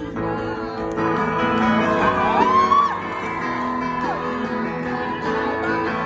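Live rock band playing, with a woman singing over electric guitar. A high gliding vocal cry rises and falls about two seconds in.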